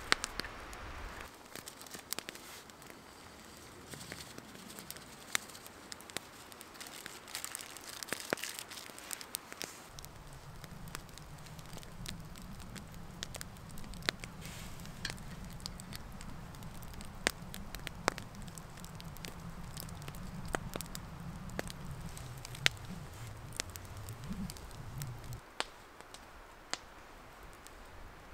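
Wood campfire crackling, with sharp pops scattered irregularly throughout. A low steady rumble sets in about a third of the way through and stops near the end.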